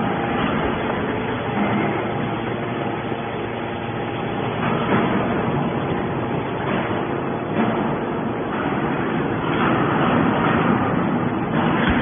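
Horizontal hydraulic metal baler running steadily as its ram pushes a compressed bale of metal shavings out of the chamber, with the hydraulic power unit's continuous hum and swells of machine noise.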